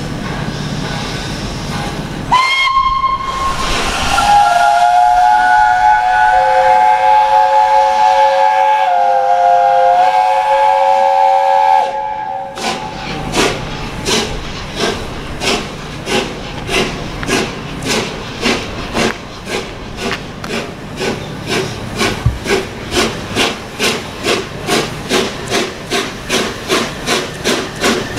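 Peppercorn A1 steam locomotive 60163 Tornado sounds its single-note bell whistle briefly, then its chime whistle in a long three-note chord for about eight seconds. It then pulls away with its three-cylinder exhaust beats coming steadily quicker. A steam hiss comes before the whistles.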